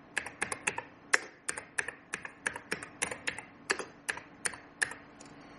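Keystrokes on a computer keyboard as a console command is typed: sharp, irregularly spaced key clicks, roughly three to five a second, that stop about five seconds in.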